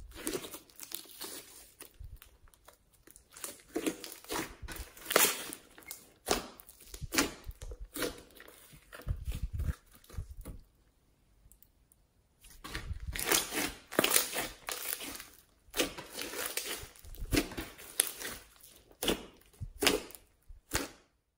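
Hands squeezing, stretching and pressing a thick, beaded pink slime, making irregular crackles and pops as it folds and traps air. There is a quiet pause of about two seconds midway, and the sounds stop just before the end.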